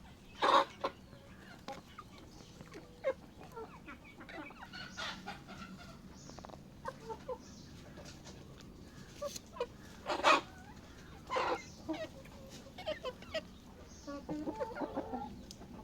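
Chickens clucking, with a few short loud calls about half a second in and again around ten and eleven seconds in, and a run of quick softer clucks near the end.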